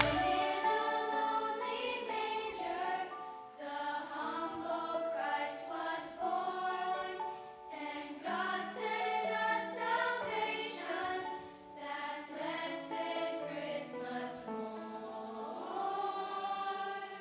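Music: a choir singing a slow melody with held notes.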